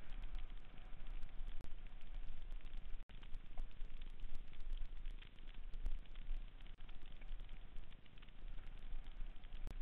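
Mountain bike running fast down a dirt singletrack: tyres rushing over the trail with a constant clatter of small knocks and rattles from the bike, and a low rumble of wind on the microphone.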